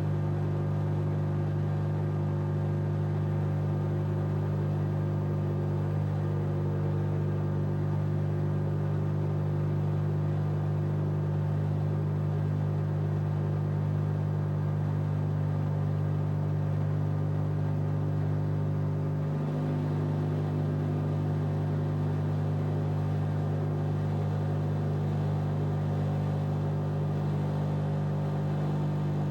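LG washing machine running with a steady, unchanging hum.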